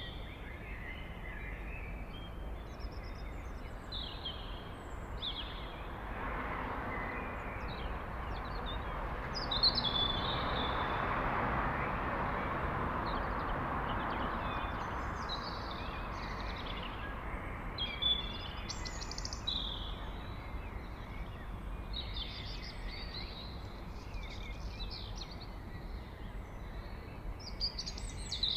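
A blackbird singing short, separate song phrases with pauses between them over a low steady background hum. A broad rush of background noise swells up in the middle and fades away again.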